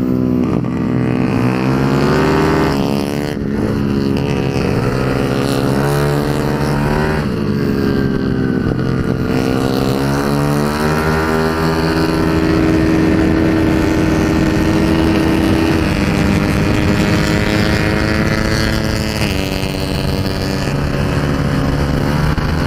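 Engine of a race-built Yamaha Mio scooter with a 230cc four-valve engine, heard from the bike itself at full throttle on track, its revs rising and falling through corners, then holding steady and high along a straight before dropping off near the end. Wind noise rushes over the microphone.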